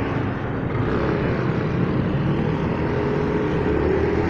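Kawasaki Fury 125 motorcycle engine running under way, rising a little in pitch in the second half as the bike gathers speed, over steady road and wind noise.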